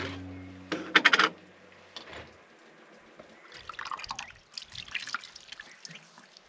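Hands scooping water from a bowl and splashing it onto a face, with splashes and drips from about three and a half seconds in. Before that, music fades out, and a few sharp clicks come about a second in.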